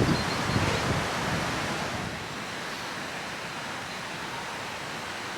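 Wind buffeting the microphone, dying down about a second in and leaving a steady rushing hiss of river water flowing.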